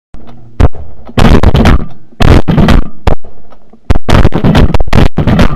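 Two hunters' shotguns firing a rapid volley into a lifting flock of pigeons: about a dozen loud blasts in quick succession, some nearly on top of one another.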